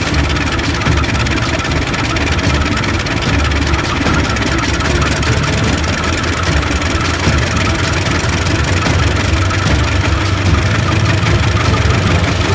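CC 201 diesel-electric locomotive's engine running steadily as the locomotive pulls away, a low, even drone.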